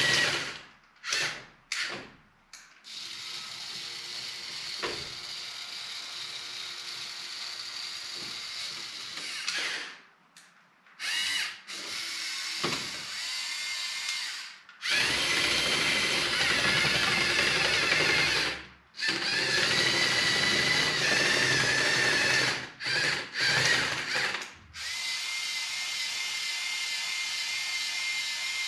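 Small electric motors and gear trains of a LEGO Technic tracked RC straddle carrier whirring as it drives. It runs in starts and stops: a few short bursts early, then longer runs with a steady high whine, loudest around the middle.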